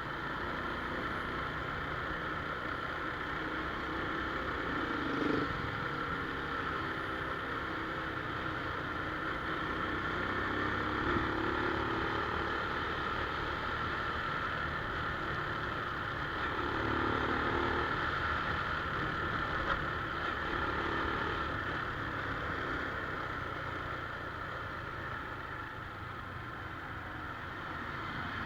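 Honda Wave 110i's small single-cylinder four-stroke engine running with steady road and wind noise. The engine note swells briefly a few times.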